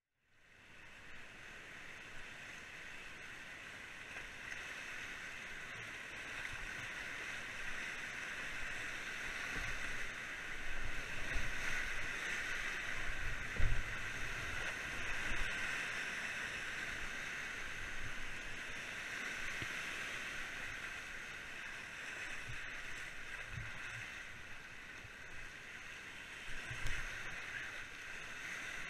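Whitewater rapids rushing and splashing around a kayak, swelling louder through the middle as the boat runs a big rapid. A few low thuds of water hitting the boat come in the middle and near the end.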